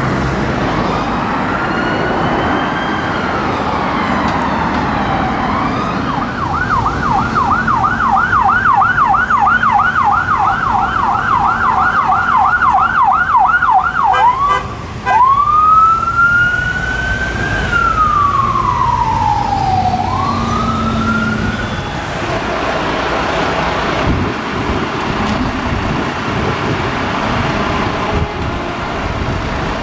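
Emergency vehicle siren in city traffic. It opens with a slow wail, then switches to a fast yelp of about three sweeps a second for some eight seconds, which breaks off about halfway through. Slow rising and falling wails follow, then only traffic noise for the last several seconds.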